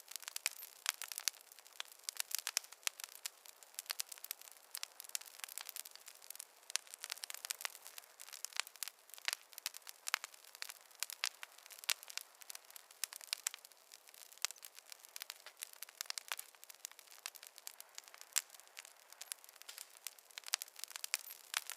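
Wood fire in a fireplace crackling, with many small irregular pops and snaps and no low rumble.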